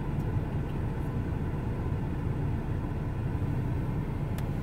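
Steady low rumble of a car's engine and road noise heard from inside the cabin as it rolls slowly forward, with one light click near the end.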